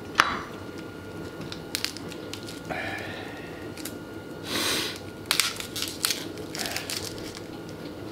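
Dry, papery onion skin crackling and rustling as it is peeled off a whole onion by hand. Scattered sharp crackles, with a longer rustle about halfway through.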